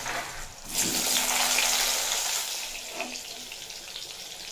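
Flat beans and brinjal frying in hot mustard oil in an aluminium kadai: a hissing sizzle that swells about a second in and then slowly fades.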